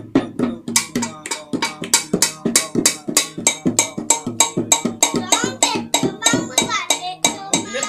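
Balinese-style dance accompaniment: a small double-headed hand drum and a small brass gong struck in a quick, steady rhythm of about four or five strokes a second, with metallic ringing between the strokes.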